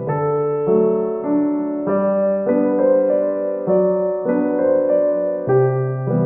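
Background piano music: a gentle melody of sustained notes that change every half second or so.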